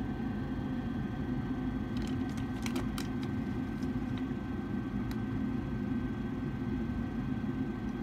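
Furnace draft inducer blower running steadily with a low hum, pulling vacuum on the pressure switch line. A few light clicks come about two to three seconds in and once near five seconds.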